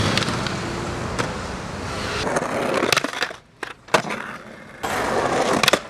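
Skateboard wheels rolling over concrete and stone, with sharp clacks of the board about three and four seconds in and rolling again near the end, ending in another clack.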